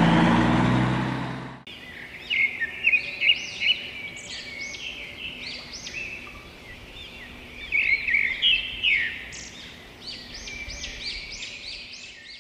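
A loud rushing noise for the first second and a half that cuts off suddenly, then many birds chirping in quick, overlapping calls.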